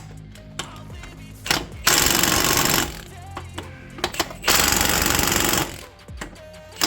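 Impact wrench hammering in two bursts of about a second each, a couple of seconds apart, with clicks between them: it is running down the Loctited bolts that hold a new front hub bearing.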